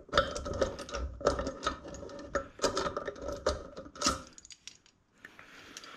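Quick, irregular metallic clicking and rattling from a bearing-removal tool being worked in a motorcycle wheel hub to draw out a collapsed wheel bearing. The clicking stops about four seconds in.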